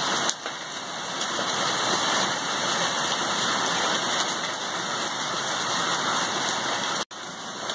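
Heavy hail mixed with rain pelting potted plants, leaves and paving: a dense, steady hiss. It cuts out for an instant about seven seconds in.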